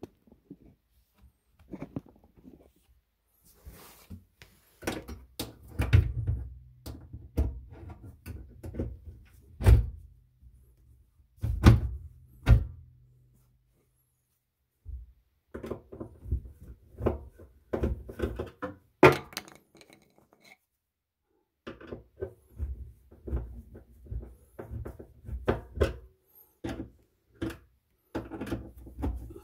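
Irregular knocks, thunks and clicks of kitchen cabinet doors and their concealed hinges being worked on and adjusted, in clusters with a couple of short pauses.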